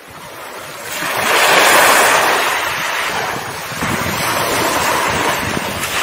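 Ocean surf: a steady rush of waves washing on a shore. It fades in and swells about a second in and again near four seconds.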